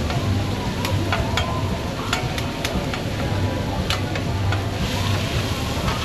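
Food sizzling on a hot cooking surface, with sharp clicks and taps of utensils at irregular intervals over a steady low hum.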